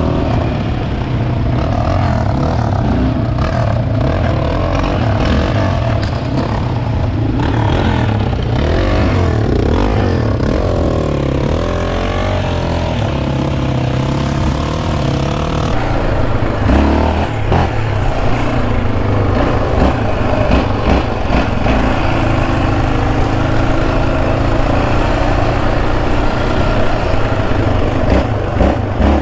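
Yamaha Raptor 700R ATV's single-cylinder engine with an aftermarket Monster exhaust, running under load on a dirt trail. The revs rise and fall with the throttle, and there are a few knocks from the chassis over bumps about sixteen seconds in.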